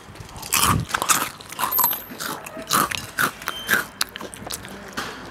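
Potato chips crunched and chewed right against a small clip-on microphone held at the mouth: a quick string of sharp, crisp bites, thinning out after about four seconds.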